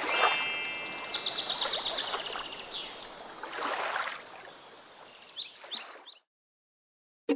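Birds chirping and trilling, with a fast run of repeated high notes early on, over a soft outdoor hiss; the sound fades out about six seconds in.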